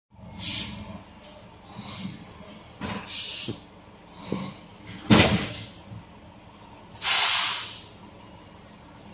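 Dump truck's air brakes hissing in a series of bursts: several short releases of air, the loudest about five seconds in, and a longer hiss about seven seconds in.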